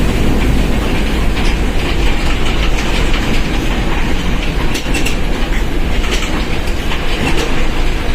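Mercedes-Benz OF1721 BlueTec 5 bus under way: a steady, deep diesel drivetrain rumble with road noise and scattered rattles and clicks.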